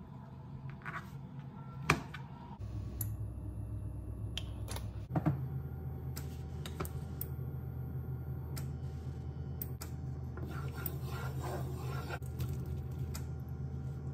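Kitchen cooking sounds: a knife tapping on a plastic cutting board, then a steady low hum with scattered clicks and knocks of a spatula against a non-stick frying pan.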